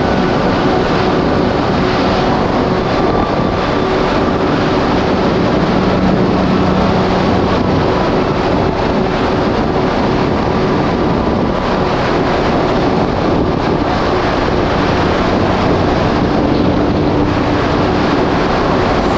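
2019 Yamaha GP1800R SVHO jet ski's supercharged engine running steadily at speed on open water, with wind buffeting the microphone and water rushing past the hull.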